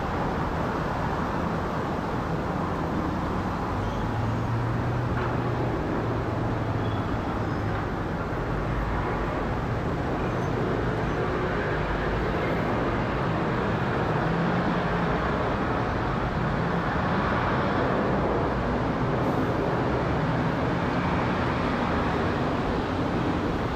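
Twin GE90-115B turbofan engines of a Boeing 777-300ER at climb power just after takeoff: a steady jet rumble that grows slightly louder in the second half as the airliner comes overhead.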